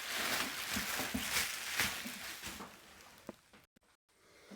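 Rustling and crinkling of packaging being handled, fading out after about two and a half seconds, with a single click near the end before the sound drops away briefly.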